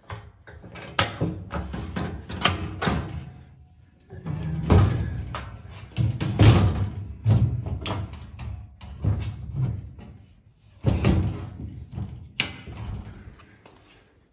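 Steel access hatch on a 100-watt OMTech CO2 laser cabinet being shut and latched: a string of metallic knocks, clicks and rattles from the sheet-metal panel and its latch handle, with several louder knocks.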